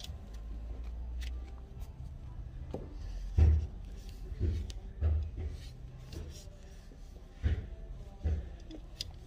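Hand tools being worked at the oil filter under a car: a handful of dull knocks, the loudest a few seconds in, with light metal clicks between them.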